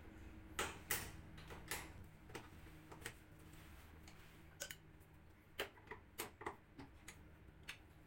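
A dozen or so sharp clicks and light knocks at irregular intervals as hands work at the plastic control panel of a Sharp single-tub top-loading washing machine being taken apart. A faint steady hum runs underneath.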